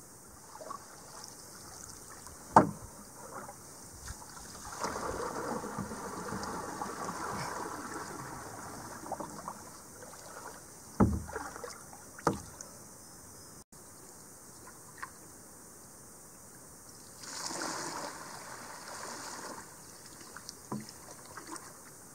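A wooden canoe paddle working the water as a solo canoe is started and stopped: two stretches of rushing, splashing water as the blade pulls and brakes, with a few sharp knocks in between.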